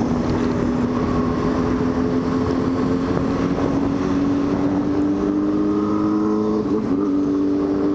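Motorcycle engine running under steady throttle, its note climbing slowly, with a short shift in pitch about seven seconds in, over a constant rush of road and wind noise.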